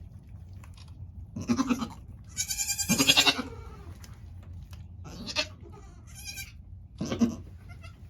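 Goats bleating, a doe with her newborn twin kids: four or five separate calls with a wavering pitch, the longest and loudest about three seconds in.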